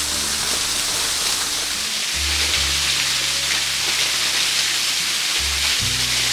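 Background music with a steady rush of falling water: a mountain waterfall's spray and splash under low, stepping music notes.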